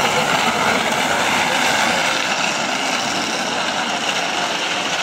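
Wheels of a low goitibera (gravity racing cart) rolling fast on asphalt, a steady rolling roar that eases slightly as it runs away down the road.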